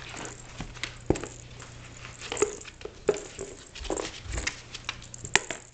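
Young Shetland sheepdog puppy rummaging in a cardboard box, chewing and tearing at loose cardboard: irregular crackles, scrapes and rustles.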